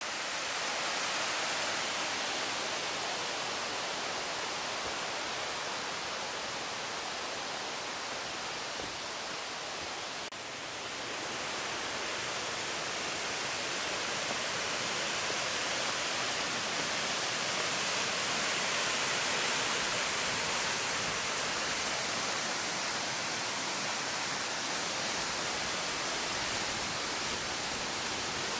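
Waterfall: falling water rushing with a steady, even noise that dips briefly about ten seconds in.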